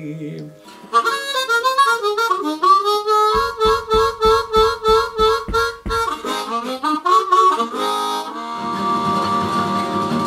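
Blues harmonica playing an instrumental phrase: a rising run of notes, then a stretch of one note pulsed about three times a second over low thumps on the beat, and it ends on a long held chord.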